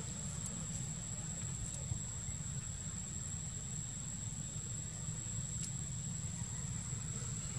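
Outdoor ambience: a steady low rumble with a continuous thin, high-pitched insect drone over it, and a faint click or two.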